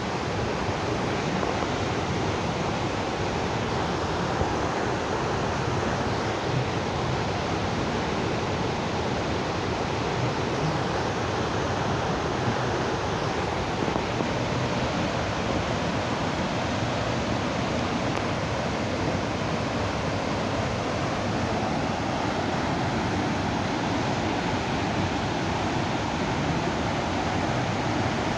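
Muddy floodwater rushing and pouring over stepped concrete weirs in a walled river channel, a steady, unbroken rush of water: the river in spate and starting to flood.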